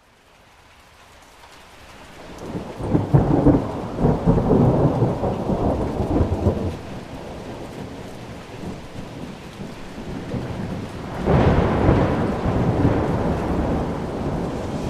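Thunderstorm with steady rain and two long peals of rolling thunder. The first peal starts about two to three seconds in and rumbles for several seconds. The second starts sharply about eleven seconds in and rumbles on. The sound fades in from silence at the very start.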